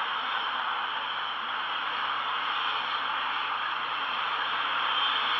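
Steady static-like hiss, even throughout, with a faint high whine entering near the end.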